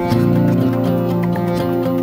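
Background music led by guitar, with held notes over a steady beat.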